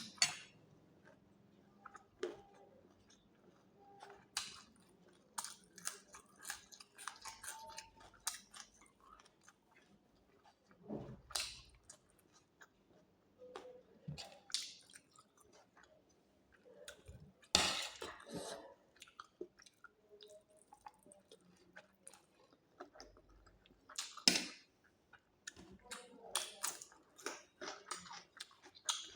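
A person chewing and eating close to the microphone: wet chewing, lip smacks and small crunches come at irregular intervals, with a few louder clusters of crackling bites.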